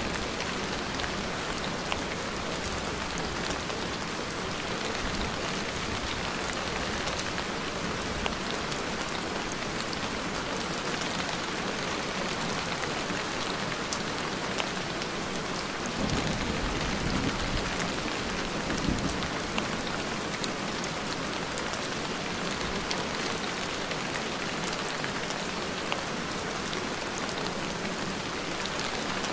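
Steady rain falling, with scattered drop ticks and a low rumble from about sixteen to nineteen seconds in.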